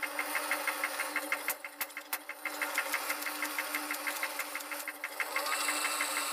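Wood lathe running with a steady hum while the spinning wooden workpiece is worked by hand, giving a regular rubbing pulse several times a second. A few sharp clicks come about a second and a half to two seconds in.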